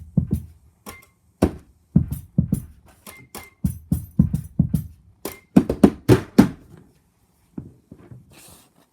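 Found-object percussion played on household items (boxes, keys, a toy telephone): a rhythmic pattern of low thumps and sharp taps. It stops about seven seconds in and is followed by a brief soft rattle near the end.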